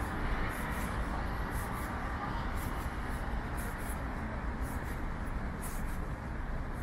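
Cabin noise inside a Seoul city bus under way: a steady low engine and road rumble, with a few faint high clicks and rattles about halfway through.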